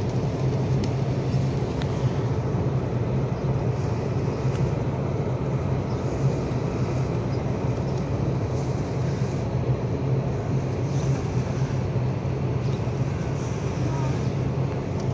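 A steady, low engine hum drones on without a break, holding one constant pitch.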